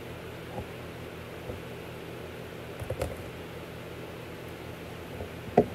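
Steady hum and hiss of a small room, with a few light knocks and a sharper knock just before the end.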